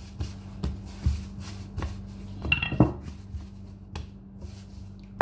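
Hands kneading and pressing bread-type pizza dough on a countertop: irregular soft thumps and knocks of dough and hands against the counter, with a louder cluster of knocks about halfway through. A steady low hum runs underneath.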